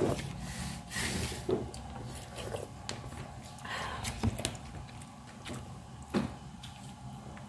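Scattered soft rustles and taps as a bare hand tears grilled chicken in a paperboard takeout box, over a steady low hum.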